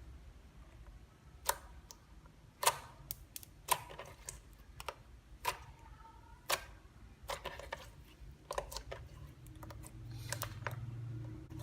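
Sharp, separate sticky clicks and pops, about one a second at irregular spacing, from hands squeezing and poking clear slime.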